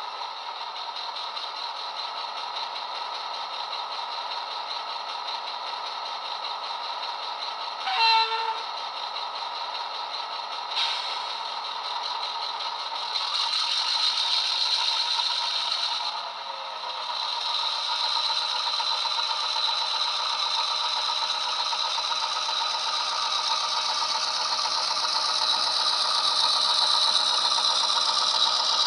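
Sound decoder in a Murphy Models 121 class diesel locomotive model, playing the later-engine sound file through small speakers. The diesel idles, one short horn blast sounds about eight seconds in, and from a little under halfway the engine note rises and grows louder as the loco pulls its train away, with a brief drop about halfway through.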